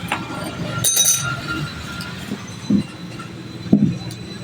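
A short metallic clink about a second in, then two dull knocks, the second louder, over a steady background noise: objects being handled on a workbench.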